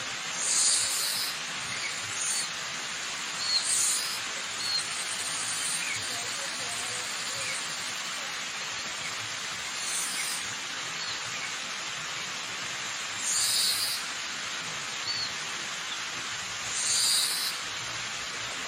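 Waterfall rushing steadily, with about five short, high bird calls standing out over the water at irregular intervals of a few seconds.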